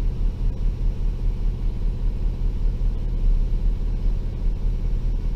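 A 2013 Ford F450's 6.7 L Power Stroke turbodiesel V8 running steadily with an even low pulse.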